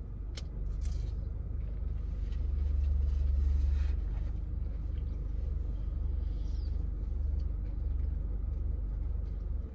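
Low steady rumble of a car engine idling, heard inside the cabin, with a few faint clicks.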